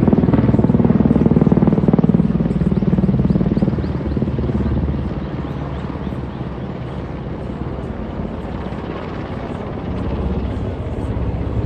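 Large helicopter flying low overhead, its main rotor beating in a fast, steady chop. It is loudest for the first few seconds, then fades as it moves away, swelling slightly again near the end.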